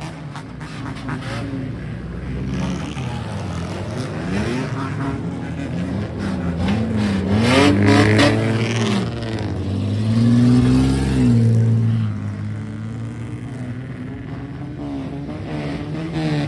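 Modified kaido racer cars rolling slowly past with their engines revved over and over, each rev rising and falling in pitch. The revving is loudest about eight seconds in and again around eleven seconds in.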